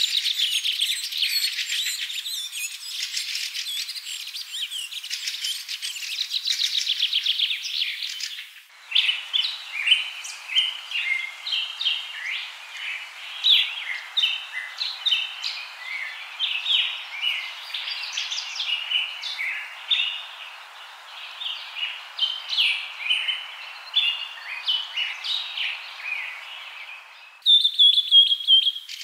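Songbirds chirping and trilling: many short, high, rapid calls. The chorus changes abruptly about nine seconds in and again near the end, where a single buzzy trill takes over.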